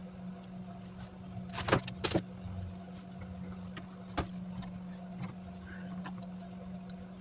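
A few sharp clicks and taps from handling small laptop parts: a quick cluster about two seconds in and a single click around four seconds, with fainter ticks, over a steady low hum.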